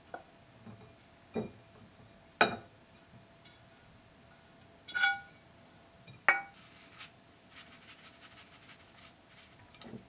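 A wooden spatula and a nonstick frying pan knocking and clinking against a ceramic bowl while fried rice is scraped out of the pan into it. There are four sharp knocks, one of which rings briefly. Near the end comes a few seconds of light scraping.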